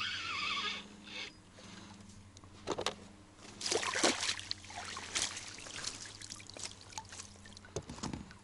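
A hooked pike splashing at the surface beside an inflatable boat as it is scooped up in a landing net, with water sloshing and trickling off the net. The loudest splashes come about three to four seconds in.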